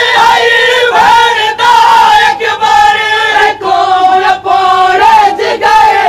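A group of men chanting a Siraiki noha, the Shia mourning lament, loudly in unison, in long wavering sung lines.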